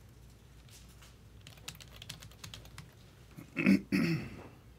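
Faint, irregular clicking of typing on a computer keyboard. A brief vocal noise in two short parts comes about three and a half seconds in and is the loudest sound.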